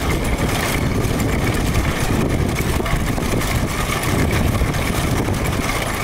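Motor vehicle engines running steadily under a dense, constant rumble.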